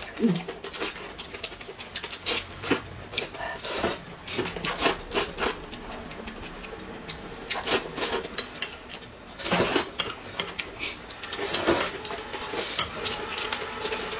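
Eating at a table: chopsticks clicking and scraping against porcelain plates and a pickle bowl, with noodles slurped in two longer stretches past the middle.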